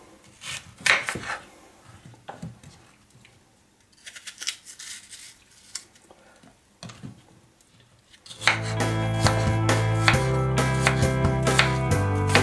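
Small kitchen knife cutting peeled apples into quarters and small pieces on a wooden cutting board: irregular cuts and taps of the blade on the board. About eight seconds in, background music starts and becomes the loudest sound.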